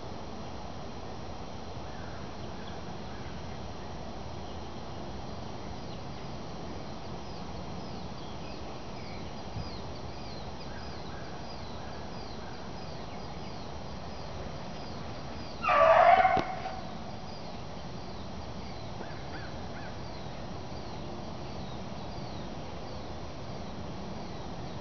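A bluetick beagle gives one short, loud bay about two thirds of the way through: a hound giving voice while running a rabbit. Faint, repeated high bird chirps sound over a steady background hiss.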